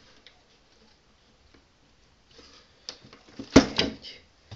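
Handling noise of small hard objects: a few light clicks, then a sharp knock about three and a half seconds in, followed by smaller clicks.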